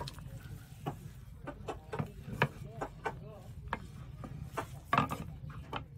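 Wooden cooking stick knocking and scraping against a metal pot while stirring maize flour into boiling water for ugali: irregular taps and clicks, the sharpest about two and a half and five seconds in.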